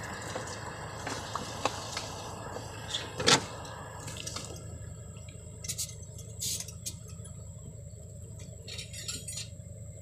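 A steady hiss that falls away about four seconds in, with a few sharp clicks of a pocket lighter being struck to light a gas cutting torch.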